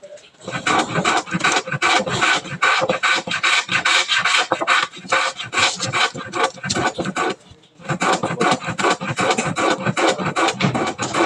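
Utility knife blade scraping and cutting through a PVC-laminated gypsum ceiling tile in rapid, repeated strokes, with a brief pause about seven and a half seconds in.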